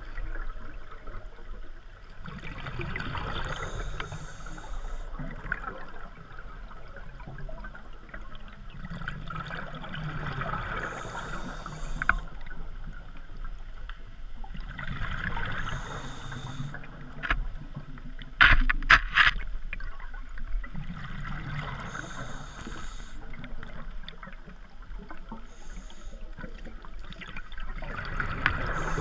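Scuba diver breathing through a regulator underwater: a hiss and a rumble of exhaled bubbles that swell and fade about five times, one breath every five to six seconds. A quick cluster of three or four sharp knocks about two-thirds of the way through is the loudest thing.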